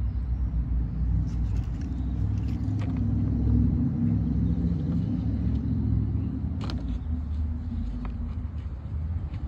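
Lawn mower's small single-cylinder engine running steadily, with a few short plastic clicks from hands on the engine cover.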